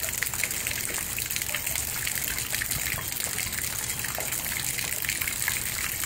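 A stream of rain runoff pouring from above into pond water and splashing steadily, with heavy rain hitting the surface in many small drop splashes.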